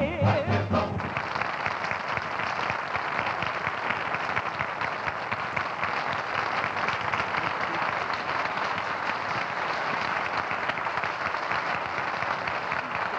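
Studio audience applauding steadily, loud and sustained, after a song number. The band's last notes sound in the first second.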